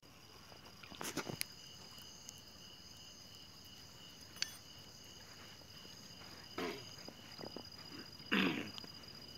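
Night insects, likely crickets, keep up a steady high trilling on a few fixed pitches. A few brief scuffs and knocks from handling sound about a second in and twice near the end.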